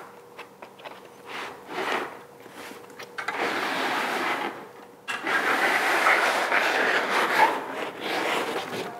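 A foam-capped tripod being pulled out of a long cardboard box: foam and cardboard scraping and rubbing against each other. It comes in two long drags, starting about three seconds in and about five seconds in, the second the longer and louder, with a few small knocks before them.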